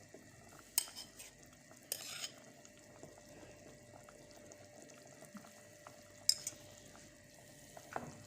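A spoon clinking and knocking against kitchen pots and dishes while olive oil is spooned out: a few separate light clicks, the sharpest about six seconds in, and a short scrape about two seconds in.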